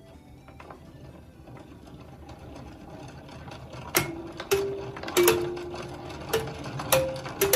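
3D-printed automatic music player running: its gear train and spinning governor whir as the mechanism gets going, and about four seconds in a star wheel starts plucking the metal tines of a kalimba, giving a slow tune of single ringing notes, each starting with a click.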